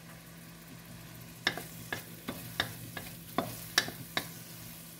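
Small dried shrimp sizzling in hot oil in a metal wok, being fried to a light brown. From about a second and a half in, a wooden spatula scrapes and knocks against the pan as they are stirred, about two or three strokes a second.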